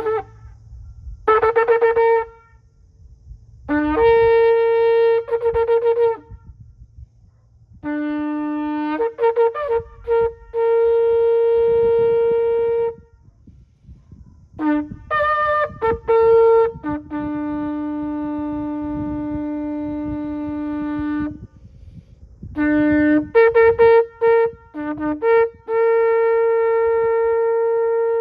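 A ram's-horn shofar being blown in a series of blasts that jump between a lower and a higher note. Groups of short, broken blasts alternate with long held ones, the longest held for about four seconds on the lower note.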